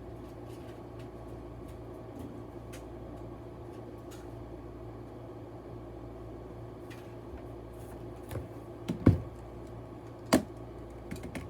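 Steady low background hum with scattered light clicks, then two sharp knocks near the end, the first the loudest: objects being handled and set down.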